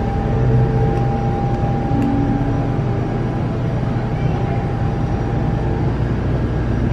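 A steady low hum and rumble, with a faint held tone above it that fades out near the end.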